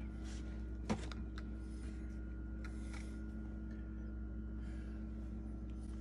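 Quiet room tone with a steady low electrical hum and a faint fixed tone, broken by one sharp click about a second in and a few faint ticks.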